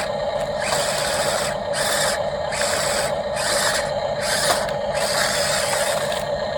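Motors and gears of a remote-control Volvo model excavator whirring in short spurts that start and stop several times as its functions are worked, over a steady whine.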